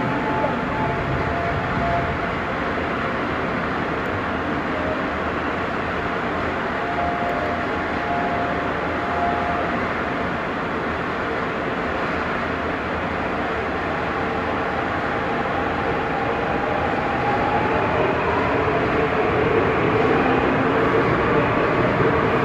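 Seoul Subway Line 6 electric train pulling out of an underground station: steady running noise with faint motor tones, growing louder over the last several seconds as the accelerating cars come past.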